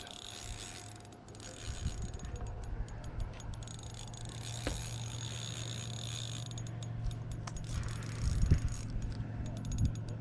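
Ultralight fishing reel's drag clicking in rapid runs of ticks as a hooked carp pulls line off, over a low steady hum.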